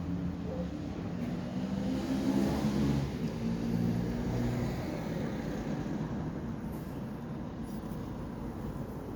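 Engine of a passing motor vehicle, pitch stepping up as it accelerates, loudest in the first three seconds and then fading into a low rumble.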